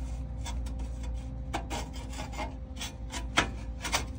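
A tacked sheet-metal pipe reducer being test-fitted onto a rusty exhaust pipe, metal scraping and clicking against metal in short irregular strokes over a steady low hum.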